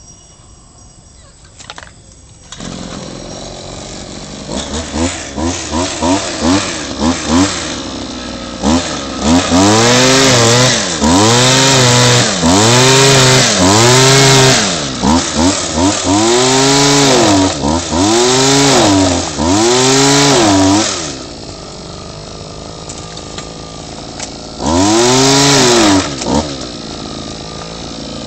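Small two-stroke engine of an oil palm pruner (Mitsubishi TU26) starting up about two and a half seconds in, then revved over and over, its pitch rising and falling about once a second, before settling to an idle with one more rev near the end.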